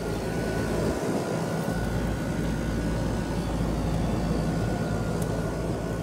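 Concord 4AC13L air-conditioner condensing unit running: the top fan blowing a steady rush of air with the compressor's low hum beneath it and a faint steady high whine.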